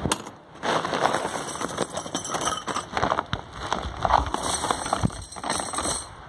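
Small metal parts clinking and rattling as a hand stirs through a box and then a sack of them, a dense run of light metallic clatter after a short lull at the start.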